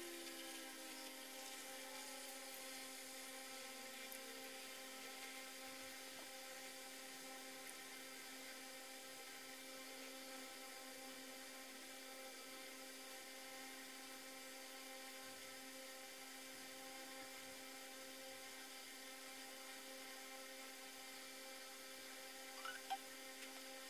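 Infinity Nado spinning top whirring faintly on its plastic stadium floor, played back at four times speed so the whir comes out as a thin, steady, high whine; its pitch falls over the first couple of seconds.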